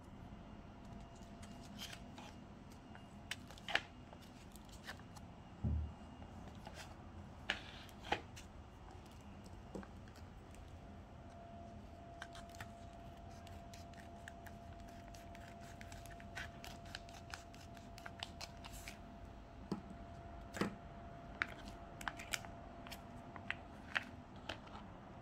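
Foil sauce pouches being handled on a table: scattered crinkles, taps and clicks, with scissors snipping open a retort sauce pouch. A dull thump about six seconds in.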